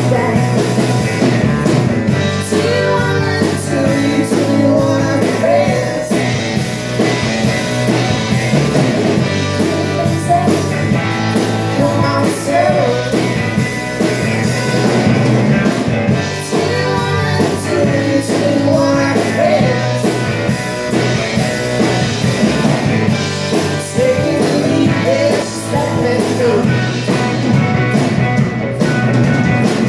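Live rock band playing: a woman sings over electric guitar, electric bass and a drum kit.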